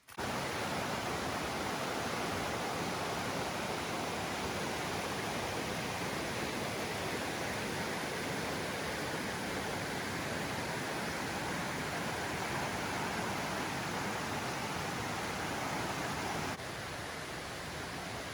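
Steady rushing noise of flowing water. It starts abruptly and drops to a lower level with a sudden cut about three-quarters of the way through.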